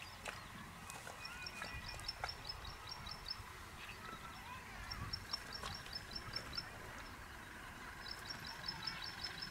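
A bird singing a rapid run of short, high, evenly spaced notes, about four a second. The phrase is repeated three times with pauses of about a second between.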